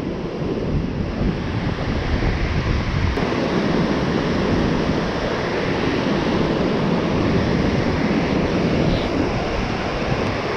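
Steady rush of water pouring through a river spillway, a dense even roar that grows a little fuller about three seconds in.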